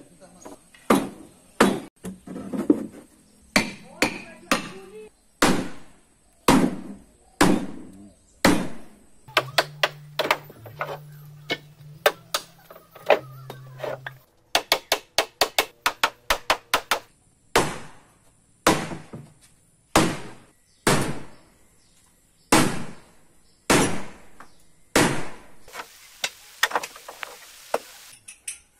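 Hammer blows on wooden boat timbers, roughly one a second, with a quick run of lighter rapid taps in the middle before the steady blows return.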